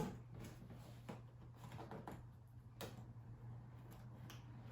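Faint, scattered clicks and taps of parts and packaging being handled during an unboxing, about one a second, over a low steady hum.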